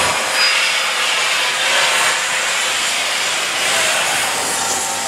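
Santa Fe 4-8-4 steam locomotive No. 3751 venting steam low at its front end: a loud, steady hiss that swells and eases slightly.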